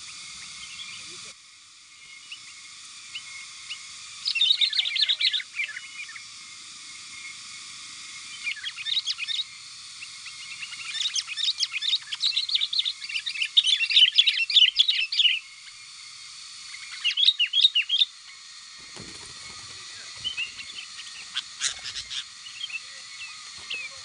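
Sooty-headed bulbuls (kutilang) calling in several bouts of quick, bubbly chirps over a steady high hiss. The longest and loudest bout comes around the middle, with fainter chirps near the end. The calling is the bulbul lure at work, with a wild bulbul coming in to the tethered decoy.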